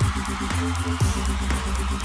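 Background music with a steady beat and a deep bass line, punctuated by falling bass hits about once a second.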